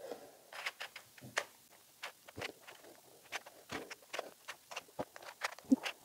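Layers of a cheap Dollar Tree 3x3 puzzle cube being turned quickly by hand in a scramble: a run of irregular plastic clicks and scrapes, with a rough, sandy grind to the turning.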